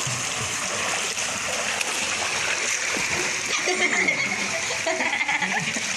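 Swimming pool water splashing around people moving in it: a steady rush of splashing water, with faint voices in the second half.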